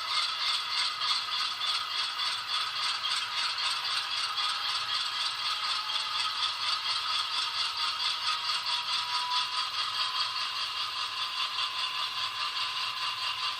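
Sound decoder in an N-scale GE C44-9W 'Dash 9' model locomotive playing the diesel engine start-up sequence through its tiny speaker: a thin, steady, rattling engine sound with a faint whine that rises slowly in pitch and then holds.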